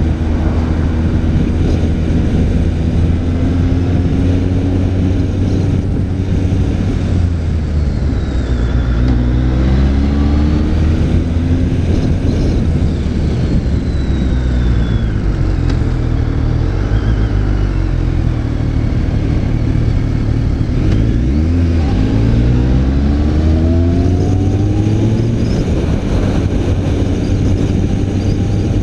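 BMW K1300R's inline-four engine under way, running at a steady pitch and then climbing in pitch as it accelerates, about eight seconds in and again just past twenty seconds, with short drops in between.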